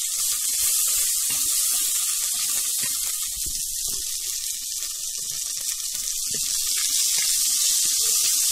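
Sliced onions sizzling in hot oil in an enamelled pot: a steady high hiss with small crackles, and light scrapes of a wooden spoon stirring them.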